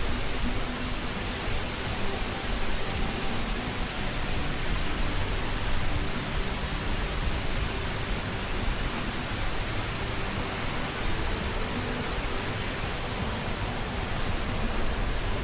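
Waterfall: a steady rush of falling water, an even hiss with no break.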